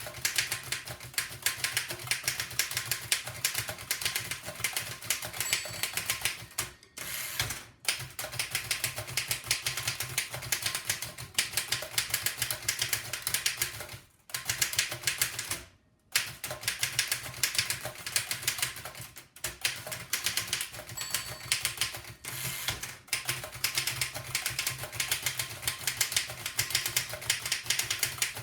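1905 Fox No. 3 upstrike typewriter being typed fast: a rapid, dense stream of key and typebar strikes, broken by a few short pauses, the longest about halfway through.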